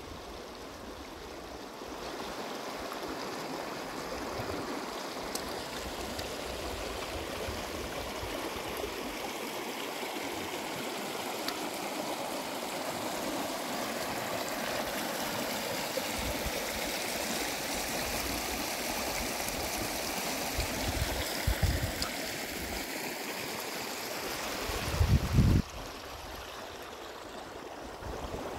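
Shallow mountain stream running over stones: a steady rush of rippling water. Two brief low rumbles come in late, the louder one near the end, after which the water sound is quieter.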